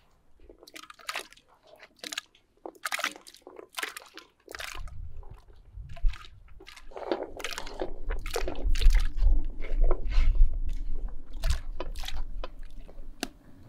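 Sliced carrots tipped from a wooden bowl into a pot of fish broth, splashing and plopping many times in quick succession. A low rumble runs underneath from about four seconds in.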